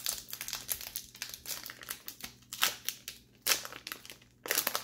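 Foil wrapper of a 1990-91 SkyBox basketball card pack crinkling and tearing as it is pried open by hand, in irregular crackles, the loudest about two and a half and three and a half seconds in and again near the end.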